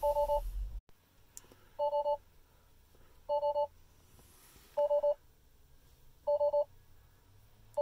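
Tesla Model 3's warning chime repeating a short triple beep about every second and a half: the alert for driving with the trunk open.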